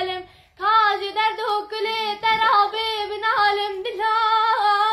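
A young girl singing a Kurdish song unaccompanied, holding long notes with wavering ornaments, with a short break for breath about half a second in.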